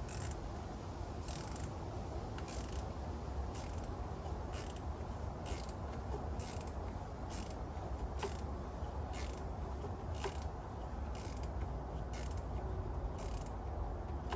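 Hand ratchet wrench tightening bolts, its pawl clicking in short bursts about once a second as the handle is swung back and forth, over a steady low hum.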